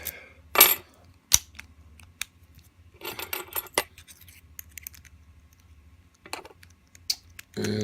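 Metal clicks and jingling of an American Lock 5200 padlock being worked with its key, the shackle opening and clicking shut. There are several separate sharp clicks and a short burst of rattling about three seconds in.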